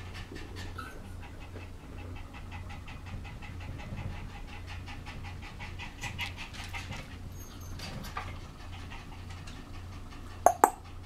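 A dog panting quickly and evenly. Near the end come two short, sharp, loud sounds.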